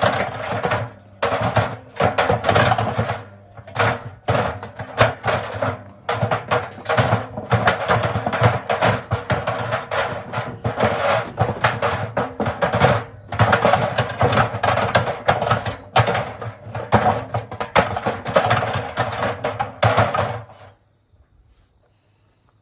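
Simpson washing machine running with a steady low motor hum and irregular knocking and clattering. The machine stops about 21 seconds in.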